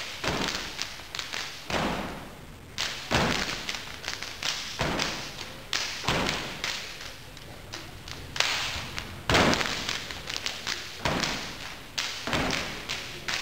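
Step team stepping: boots stomping on a wooden stage along with hand claps and slaps, in rhythmic volleys of sharp hits broken by short pauses.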